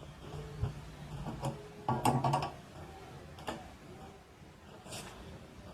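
Light clicks and taps from wires and small electronic parts being handled while a wire is joined to the circuit: a handful of separate ticks, with a short cluster about two seconds in.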